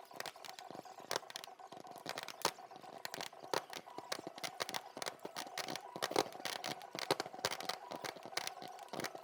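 Fireworks crackling and popping, many sharp cracks in quick, irregular succession.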